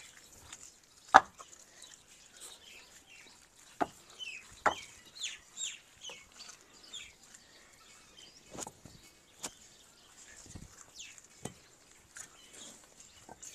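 Fired bricks knocking against each other as they are picked from a rubble pile and stacked: a sharp clack about a second in, then several more spread through, with faint chirping calls between them.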